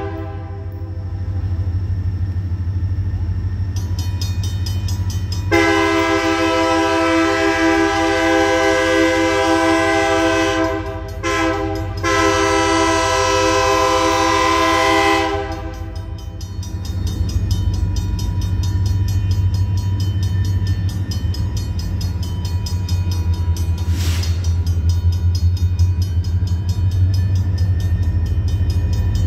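Diesel locomotive approaching slowly, its engine rumbling low throughout and growing louder toward the end. About five seconds in it sounds its multi-note air horn: a long blast, a short one and another long one, about ten seconds in all, typical of the end of a grade-crossing warning.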